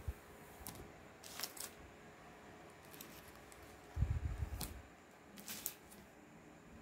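Plastic comic book bags crinkling and rustling as bagged comics are handled and shuffled, in short scattered crackles, with a low handling bump about four seconds in.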